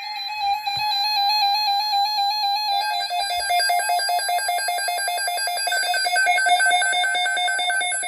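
Electronic weather-alert alarm: a loud pitched tone warbling rapidly between pitches, dropping to a lower, faster-pulsing two-tone beep about three seconds in.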